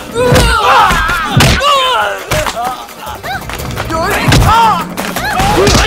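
Film fight sound effects: several punch and kick impacts (thuds and whacks) with the fighters' shouts and grunts, over background music.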